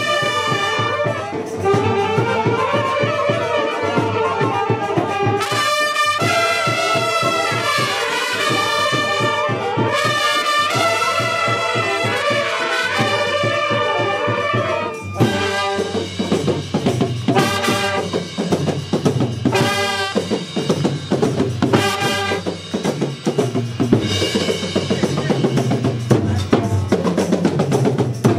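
Street brass band of trumpets and trombones playing a melody in unison over drums. About halfway through, the sustained horn line breaks off and the drums carry the beat with short brass stabs, then the horns come back in near the end.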